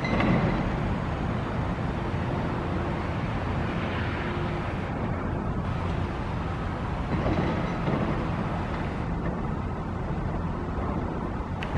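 Passenger train running away along the tracks: a steady rumble and rail noise of the wheels.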